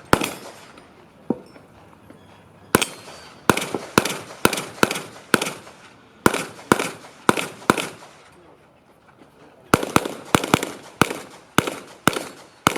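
Handgun shots fired during an IPSC practical shooting stage: about twenty sharp reports, most about half a second apart, in three strings with pauses of one to two seconds between them, each shot trailing a short echo.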